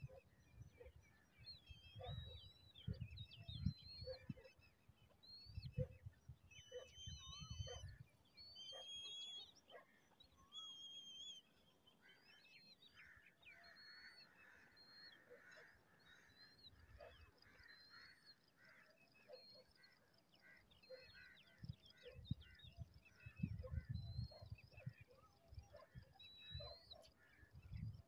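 Birds calling: many short, high chirps and whistles, some sliding briefly in pitch, scattered throughout. Soft low thumps come in clusters in the first third and again near the end.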